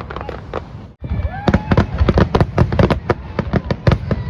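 Aerial fireworks going off in a rapid string of bangs and crackles. After a brief break about a second in, the bangs come faster and louder, several a second.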